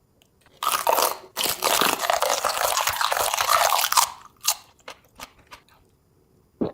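Close-miked crunching of a bite into crunchy food: about three seconds of dense, loud crunching starting just under a second in, then a few short separate crunches as the chewing tails off.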